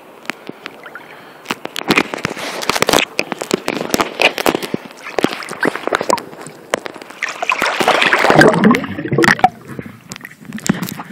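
Seawater splashing, sloshing and gurgling against a camera as it is dunked below the surface and moved through the water, with many sharp crackles and knocks. It starts about a second and a half in and is loudest about eight seconds in.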